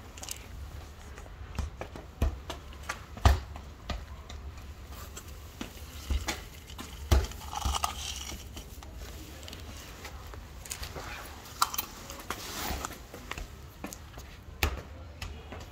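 Dry cat food tipped from a plastic scoop onto pavement and a cat crunching the kibble: scattered sharp clicks and rattles, the loudest about three and seven seconds in.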